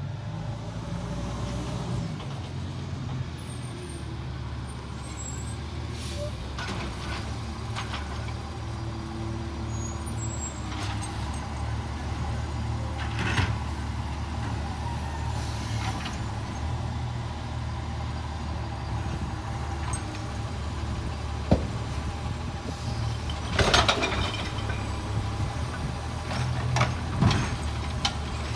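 Automated side-loader garbage truck's diesel engine running steadily while stopped at curbside carts, with a few sharp knocks and clanks from its arm and carts. About three-quarters through comes the loudest sound, a short burst of air hiss.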